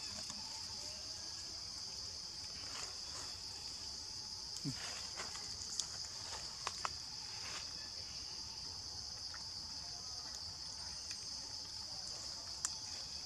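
Steady high-pitched insect chorus droning without a break. A few short clicks sound around the middle and once near the end.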